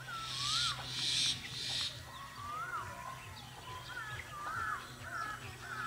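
Birds calling: many short whistled notes that rise and fall, coming faster in the second half, with a few harsh hissing calls in the first two seconds. A faint steady low hum runs underneath.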